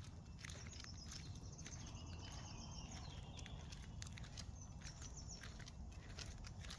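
Footsteps of a person and a leashed dog on brick paving: irregular sharp clicks of shoes and claws over a low steady rumble. Faint high bird chirps now and then.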